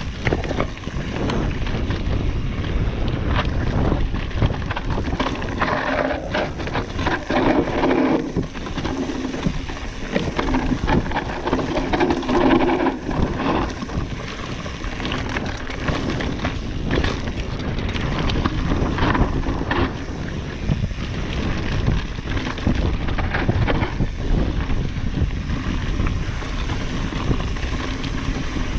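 Trek Slash 9.8 mountain bike descending a rocky dirt trail: tyres rolling over rock and loose gravel, with the chain and frame rattling in many small knocks throughout. Wind buffets the camera microphone.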